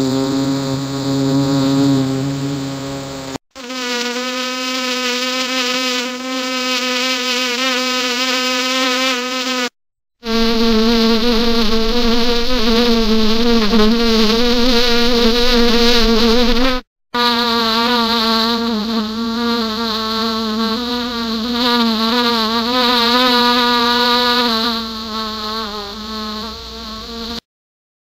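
Honey bee buzzing in flight: a loud, pitched hum that wavers up and down, cut into several stretches by brief silences.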